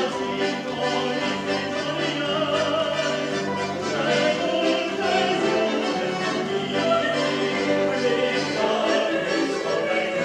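Accordion and piano playing a lively Marseille operetta tune in sustained, full chords.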